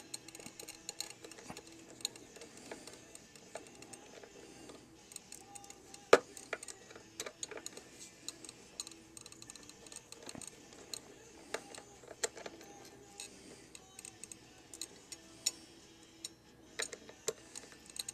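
Precision screwdriver working the small screws out of an opened hard drive: scattered light metallic clicks and ticks, with one sharper click about six seconds in.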